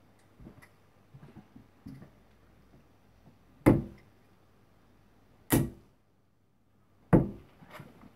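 Three thrown steel-tip XQ Max darts thunking into a Winmau bristle dartboard, one sharp hit about every one and a half to two seconds.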